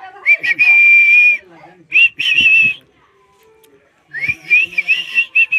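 Parrot whistling. There is a long, steady held note, then a shorter wavering one at about two seconds, and near the end a run of short rising whistles.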